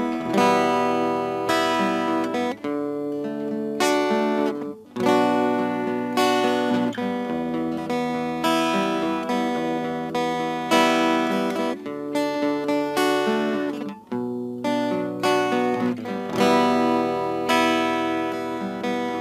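Background music: an instrumental passage of an Arabic devotional song, with acoustic guitar strumming chords that ring and fade one after another.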